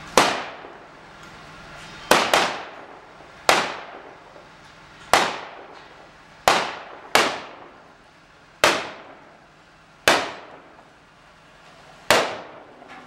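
Rifles firing blank .30-06 rounds one shot at a time, about ten single shots spaced one to two seconds apart, each trailing off in a short echo. This is covering fire for a machine gun team on the move.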